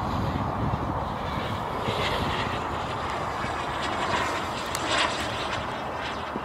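Turbine engine of a BVM Ultra Bandit RC jet flying overhead: a steady jet hiss, swelling briefly about five seconds in.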